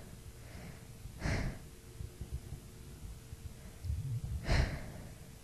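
A woman's breathing in a sneeze buildup: two short, sharp hitching breaths, about a second in and again about four and a half seconds in, with quieter breaths before each.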